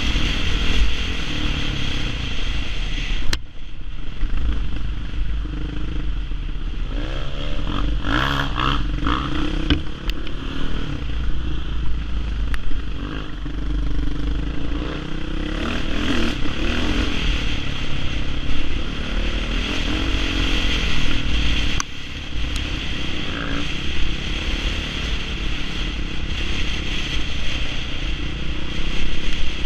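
Off-road dirt bike engine running as it is ridden over a rough trail, the revs rising and falling. A deep rumble runs underneath, with a sharp knock about three seconds in and another a little after twenty seconds.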